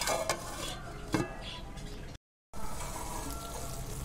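Potato slices frying and sizzling in a pan, with a few sharp clinks of cookware near the start and about a second in. The sound drops out briefly a little after the middle, then the sizzling carries on steadily.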